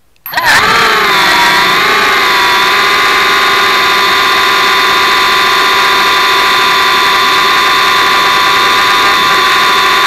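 Hubsan X4 mini quadcopter's four small motors and propellers spinning up from rest for take-off, heard through a camera strapped to the drone. It starts suddenly, its whine swoops and settles within the first two seconds, and it then holds a steady, loud, high whine as the drone hovers.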